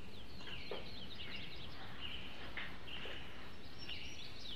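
Songbirds chirping and twittering in many quick, short notes, several birds at once, over a steady low background noise.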